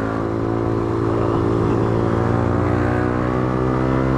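Small single-cylinder four-stroke motorcycle engine running at a steady cruising speed, heard from on board the moving bike.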